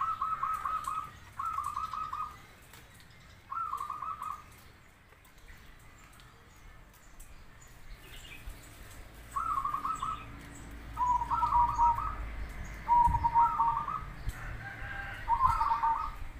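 Zebra dove (perkutut) cooing: short, rapid, trilling phrases repeated every second or two, with a pause of a few seconds near the middle. In the later phrases a lower note runs alongside the trill.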